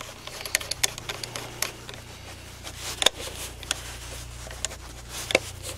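Barrel nut of a Henry U.S. Survival Rifle (AR-7) being screwed tight onto the receiver by hand: scattered small clicks and scrapes of handled metal, with two sharper clicks about three seconds in and near the end, over a low steady hum.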